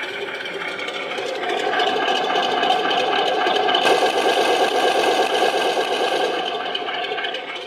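Electronic Elmod sound unit in a 1/16 RC KV-2 tank playing a simulated tank engine through the model's small speaker: running steadily, rising in pitch and level about a second and a half in and easing back down near the end, like a rev from idle.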